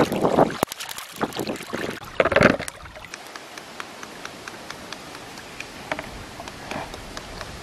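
Water splashing and sloshing as peeled green mangoes are rubbed clean by hand, loudest near the start and again about two seconds in. After that, quieter light ticks of a knife working a mango over a steady hiss of water.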